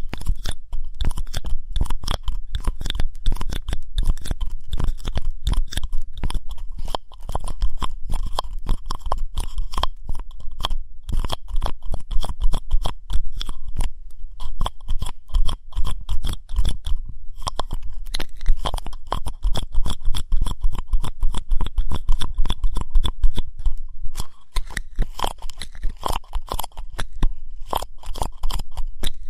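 Ear-cleaning ASMR: an ear pick scraping and rubbing, close-miked, giving a dense, fast, crunchy scratching with many strokes a second.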